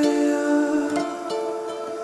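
Music: plucked acoustic guitar chords under steady held notes.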